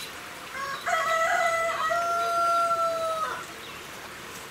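A rooster crowing once, starting about a second in and lasting about two and a half seconds, dropping off at the end.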